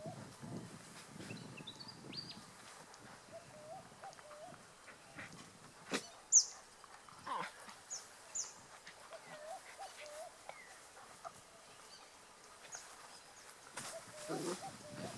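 Faint animal calls: small groups of short wavering calls that repeat every few seconds, with a few brief high chirps. A single sharp click comes about six seconds in, and a lower, rougher call comes near the end.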